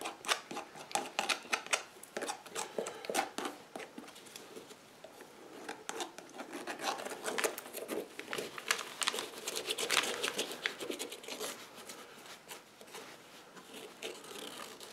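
Wooden tongue depressor smearing and scraping contact cement over a boot's rubber sole: a run of short, irregular scratchy strokes, with the rustle of the boot being turned in gloved hands.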